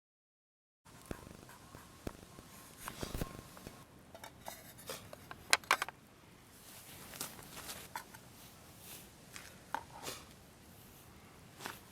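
Metal camp cookware being handled, with a string of small clinks and knocks that is busiest about halfway through.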